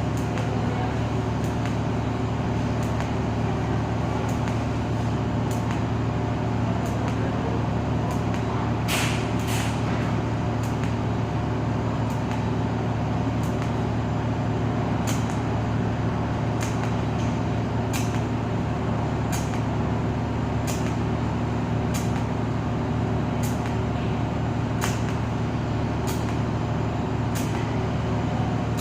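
TIG welder arc running continuously, a steady electrical buzzing hum with a hissing edge. There is a brighter burst about a third of the way in, and faint light clicks roughly every second and a half later on.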